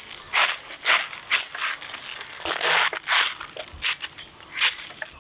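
Fresh raw cabbage being cut with a blade: a series of crisp crunches, roughly two a second, as the blade cuts through the firm leaves.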